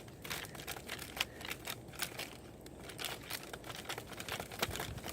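Pocket chainsaw (a toothed chain with a handle at each end) being pulled back and forth across a small twig: a run of irregular scratchy clicks as the teeth bite into the wood.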